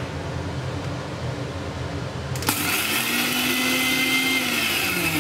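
Electric mixer grinder with a steel jar crushing soaked rice. The motor starts abruptly about halfway in, runs steadily for a couple of seconds, and winds down as it is switched off near the end.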